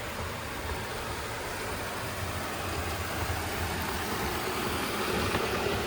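Robot vacuum cleaner running steadily: an even motor and suction whir over a low hum, with a tone growing stronger near the end.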